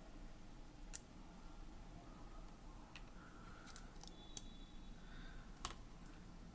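A handful of faint, sharp, isolated clicks over low background noise, with a faint high steady tone for about a second in the second half.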